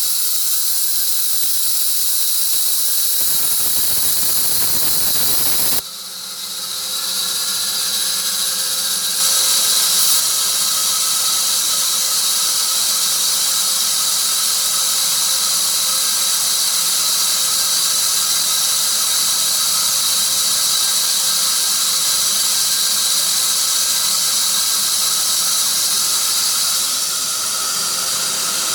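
Sawmill blade cutting through a tree of heaven log: a loud, steady, high-pitched hiss and squeal, with a brief drop in level about six seconds in before it settles back.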